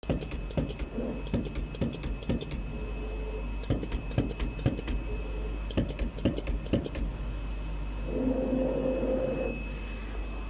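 Digital CNC flatbed leather cutting machine working its cutting head: rapid sharp clicking in bursts over a faint steady high whine, then a short low hum about eight seconds in.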